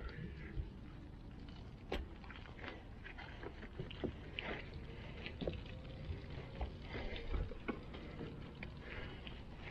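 Soapy water sloshing and splashing as a wash mitt is worked over a car's body and dunked in buckets during a hand wash, with scattered light knocks and clicks.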